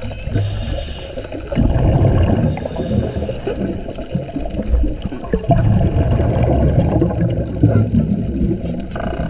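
Underwater recording: a loud, gurgling low rumble of scuba exhaust bubbles, swelling about one and a half seconds in, with faint high whistles of Hawaiian spinner dolphins gliding above it.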